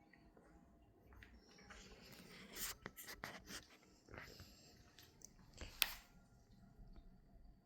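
Faint snuffling and rustling from a sleeping German Spitz dog stirring in his sleep, which the owner takes for dreaming. A short, sharp click comes a little before six seconds in.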